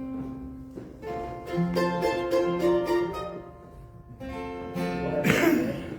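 Acoustic guitar picking out notes and chords, with a louder strum near the end.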